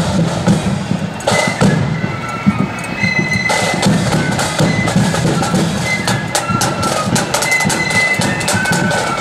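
Marching flute band playing a tune on flutes over a steady beat of snare and bass drums. The flute melody comes in stronger after a few seconds.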